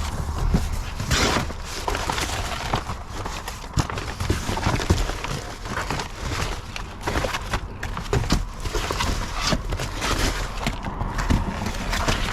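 Plastic bags and food packages rustling and knocking irregularly as they are handled, over a steady low rumble.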